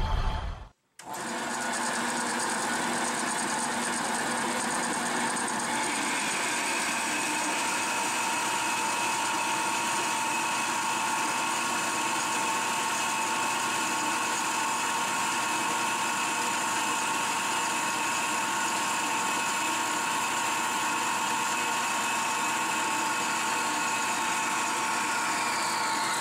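Horizontal metal-cutting bandsaw running, its blade cutting through a metal bar clamped in the vise. It is a steady mechanical whine with a few held tones, starting about a second in, and a higher tone joins a few seconds later.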